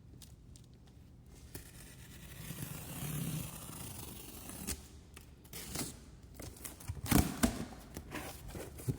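Cardboard packaging being opened: tape being cut and torn, cardboard scraping and rustling, with a few sharp knocks about seven seconds in.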